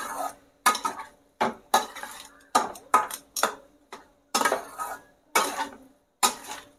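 Spatula scraping and knocking against a stainless steel kadhai while mixing a thick mashed-potato and coriander filling, in separate strokes about twice a second.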